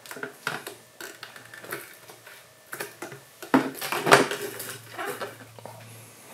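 Hard clear plastic display cases clicking and knocking together as one is handled and set onto a stack of others, with a string of sharp clacks, the loudest cluster about three and a half to four seconds in.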